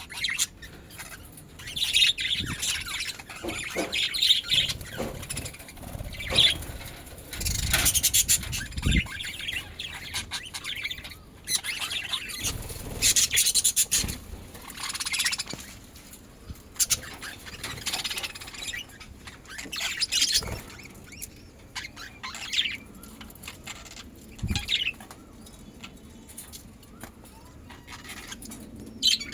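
Pet budgerigars chirping on and off, with a few short noisy bursts among the calls.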